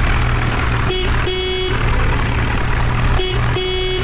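Vehicle horn sounded twice, each time as a short toot followed by a longer one, over a heavy diesel engine running steadily.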